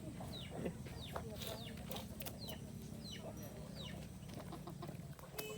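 Chickens calling: a string of short, high peeps, each falling in pitch, coming irregularly, with scattered clicks and a steady low hum underneath.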